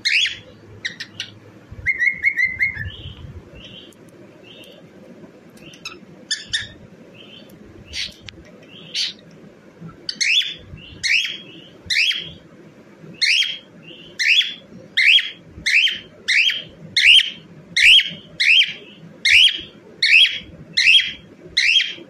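Pet cockatiel chirping: a few scattered calls and a short warble in the first seconds, then from about ten seconds in a steady run of sharp, rising chirps, about two a second.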